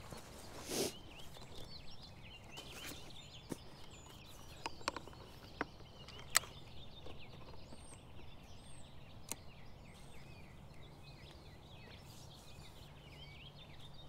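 Woodland birdsong, many small birds chirping and trilling at once. Over it come a rustle and a scatter of sharp clicks and knocks as camera gear is handled and a long lens is fitted to a tripod; the loudest click comes about six seconds in.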